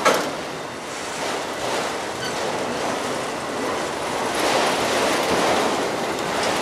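Freight cars rolling past on the rails: a steady rushing of wheels on track that swells and eases, with a few sharp wheel clacks, the loudest right at the start.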